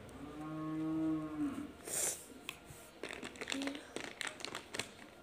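A cow mooing once, one long call of about a second and a half. It is followed by a short hiss and a run of quick scratchy taps.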